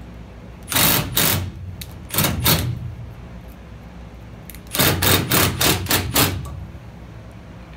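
Cordless impact driver hammering a screw up through a fan bracket into an aluminum patio-cover fan beam. It rattles in three bursts: two short ones, then a longer run near the end as the screw seats.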